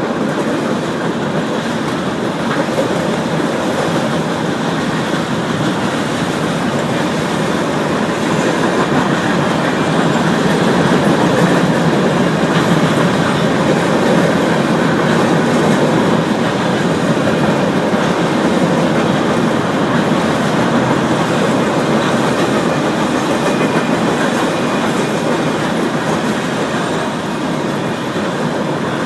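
Norfolk Southern freight train's cars rolling past at close range, a loud steady rumble of wheels on rail that swells slightly toward the middle.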